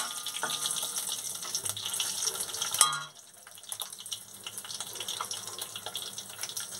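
Bay leaf and dried red chillies sizzling and crackling in hot vegetable oil in an aluminium kadai, stirred with a metal spatula. A sharp metallic clink about three seconds in as the spatula meets the pan, after which the sizzle is quieter.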